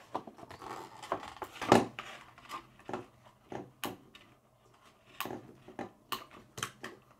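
Scissors snipping through cardboard packaging, with the box being handled: a string of irregular sharp snips and crackles, the loudest about two seconds in.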